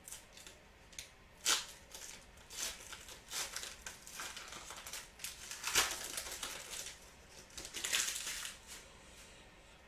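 Foil wrapper of a trading-card pack being torn open and crinkled, in a string of short crackling rustles that die away near the end.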